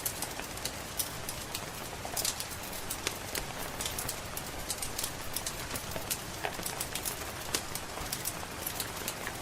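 Wood fire crackling with frequent, irregular sharp pops over a steady hiss of rain.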